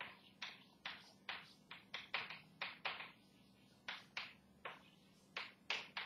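Chalk writing on a blackboard: a string of short, sharp chalk taps and strokes, about two or three a second, with a brief pause about three seconds in. A faint steady room hum lies underneath.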